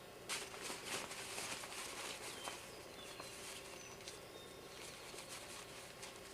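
Rustling and crackling of a sleeping bag and its straps being handled, loudest in the first three seconds and then dying down. Faint bird chirps sound in the background.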